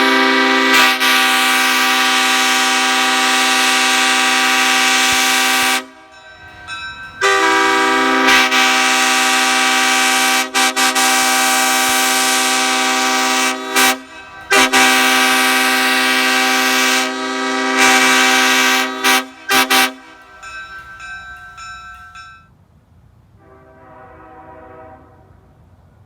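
Nathan Airchime K5H five-chime train horn, a hybrid CSX set with a two-piece sandcast 1L bell and 1, 2, straight 3 and 5 bells, sounding a steady multi-note chord. It gives three long blasts of about six seconds each, with short toots between them and two quick toots after the last, and a much fainter short chord near the end.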